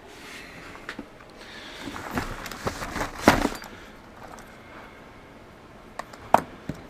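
Handling noise as parts and boxes are moved and rummaged through: a run of rattling knocks that peaks a little past three seconds in, then two sharp knocks near the end.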